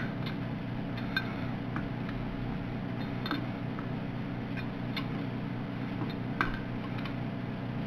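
Light metallic clicks of an open-end wrench on a hydraulic hose fitting as the fitting is tightened, about half a dozen spaced irregularly, over a steady low hum.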